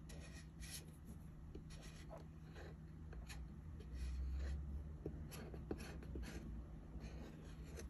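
Permanent marker drawing on a tuna can lid: faint scratchy strokes of the felt tip on the metal. A dull low rumble of handling comes about four seconds in.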